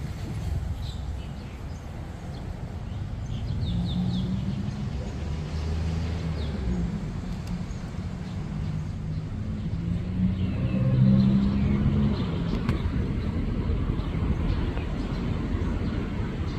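An engine running with a low rumble, its note shifting and loudest about eleven seconds in, with birds chirping.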